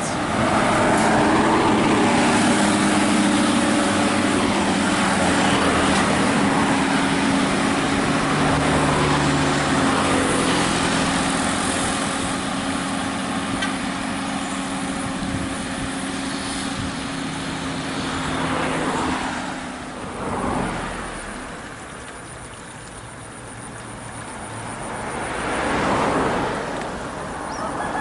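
Highway traffic: a large diesel bus engine runs close by, its pitch shifting a little as it slowly fades, then two vehicles rush past in the last third.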